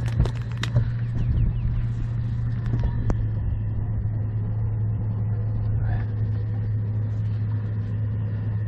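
Boat's outboard motor running steadily at low speed, a constant low hum, with a few sharp clicks and knocks in the first second.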